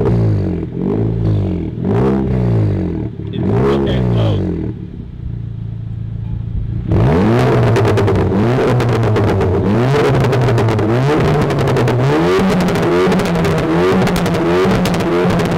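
Mk7 VW GTI's turbocharged four-cylinder engine through a Corsa cat-back exhaust, revved in four quick blips while parked. About seven seconds in it becomes louder, with revs rising and falling in steps and a rapid crackle over them.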